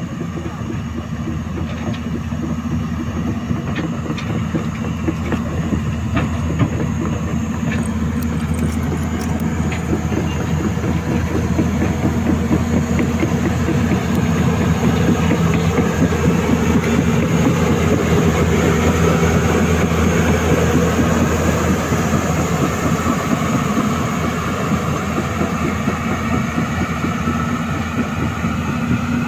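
Hyundai Robex 215 excavator's diesel engine running steadily under load, with a dense, fast clatter over its hum. It grows louder through the middle and eases off near the end, and a few sharp clicks sound in the first several seconds.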